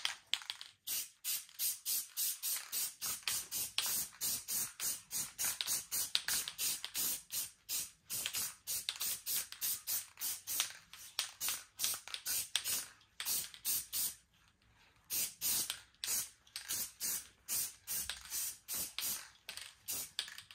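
Aerosol can of Krylon Fusion spray paint hissing in many short, quick bursts, about two or three a second, with a brief pause about two-thirds of the way through, as a first coat goes onto a plastic part.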